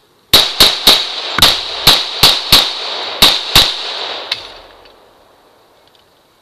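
A gun fired in quick succession, about nine shots in three seconds, then one fainter shot, with the echo trailing off afterwards.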